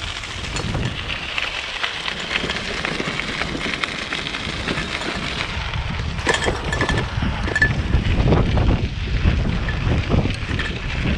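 Wind buffeting the microphone: a gusty low rumble over a steady rush of noise, growing stronger in the second half. A few short high peeps come around the middle.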